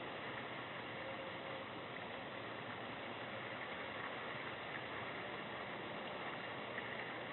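Steady, even background hiss with faint unchanging high tones and no distinct events.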